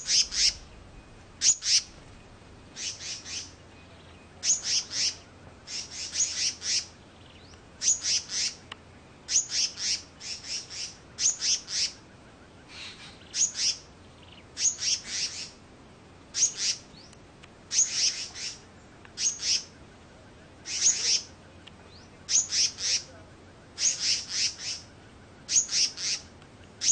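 A bird calling over and over: short, high, sharp notes in quick clusters of two to four, with a cluster about every second.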